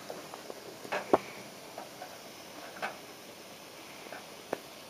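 Sporadic sharp clicks and faint crackling as a hot soldering copper works molten solder and flux along a vertical copper seam, with the loudest click about a second in.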